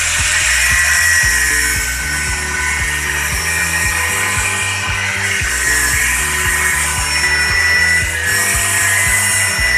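DeWalt angle grinder's disc cutting into a steel pipe, a steady high-pitched grinding whine that dips a little in places as the disc bites. Background music with a steady beat plays underneath.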